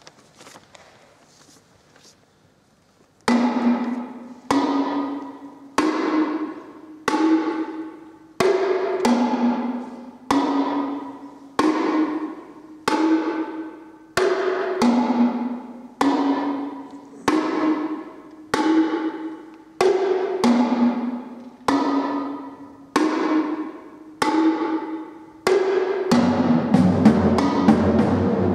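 Copper pedal timpani struck one note at a time, each stroke ringing and fading, a little more than a second apart and stepping among a few different pitches, after a quiet first three seconds. Near the end the strokes crowd into a dense, fast-played mass of drum sound.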